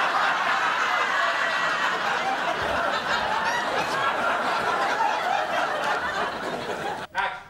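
Sitcom studio audience laughing steadily, a long laugh that stops about seven seconds in.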